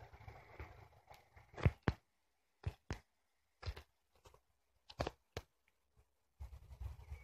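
A faint small-engine hum dies away in the first second. It is followed by a string of about a dozen sharp, separate knocks and crunches, several in quick pairs, with silence between them, and a low rumble returns near the end.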